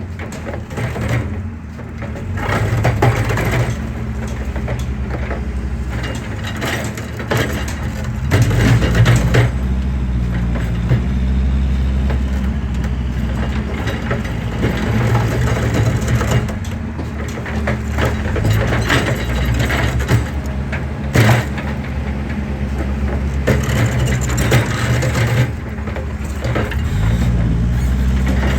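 Excavator engine running under load, its pitch shifting a few times, while concrete cracks and crunches irregularly, with one sharper crack about two-thirds of the way through.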